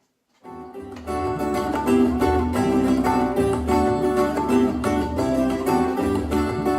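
Recorded music with plucked strings over a bass line, played back through a 12-inch powered PA speaker. It starts about half a second in and reaches full level about a second in.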